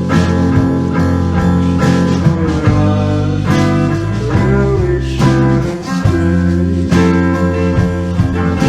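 Music with a prominent guitar.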